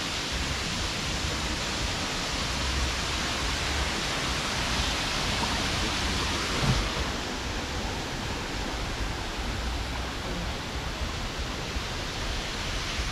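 Steady hiss of water spraying and falling among wet garden foliage, with a low rumble underneath and one brief bump about halfway through.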